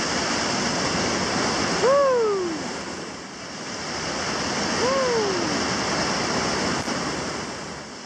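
Whitewater rushing loudly over a river drop. Two short shouts that fall in pitch rise above the water about two seconds and five seconds in.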